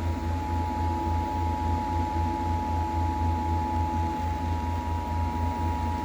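Emergency Alert System attention signal: the two-tone alarm at 853 and 960 Hz, held steady, with a low buzzing hum beneath it from the radio relay.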